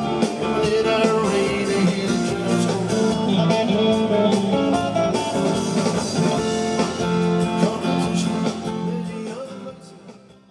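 Live rock band playing: electric guitar with bass and a man singing, in a bluesy style. The music fades out near the end.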